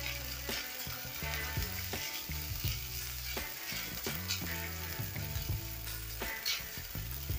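Finely chopped aromatics sizzling in hot oil in a nonstick frying pan. A silicone spatula stirs and scrapes through them in short, irregular strokes.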